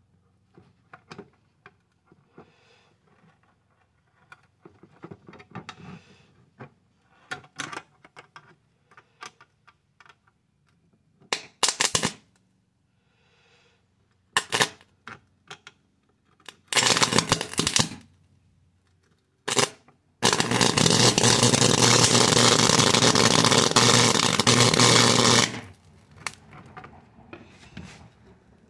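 High-voltage electric arcing between two metal probes on a circuit board: scattered sharp snapping sparks, a few short louder bursts, then a loud steady buzzing arc for about five seconds that sets the board alight, with fainter crackling after it stops.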